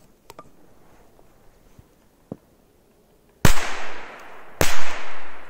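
Kazatskie double-blast firecracker going off on top of the snow: two loud bangs about a second apart, each trailing off in a fading echo.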